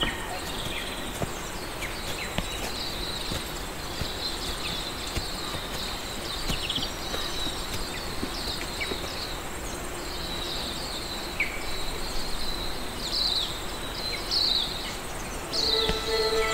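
Outdoor bush ambience: many short, high chirps from small animals over a steady background hiss. About a second before the end, a held string note comes in as the instruments start.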